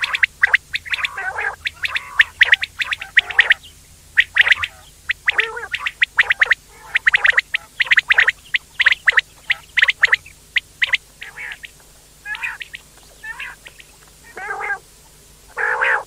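Quail calling: a busy run of quick, short chirping calls, with some lower warbling calls mixed in. The calls thin out after about eleven seconds.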